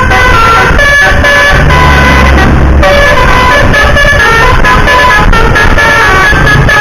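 Telolet basuri musical air horn playing a tune, very loud: several horn tones at once, stepping from pitch to pitch in quick short notes. A low engine rumble swells for about a second, roughly two seconds in.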